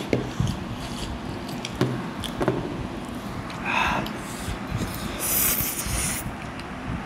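Spicy instant noodles being slurped and chewed, with wet mouth clicks, sniffling and a hissing breath lasting about a second, some five seconds in, as the chili heat makes noses run.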